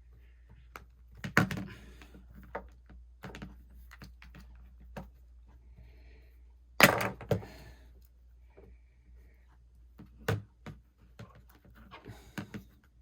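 Irregular clicks and taps of a plastic pick being worked around the edge of an iPhone 6 screen to pry it from the frame, the loudest knock about seven seconds in.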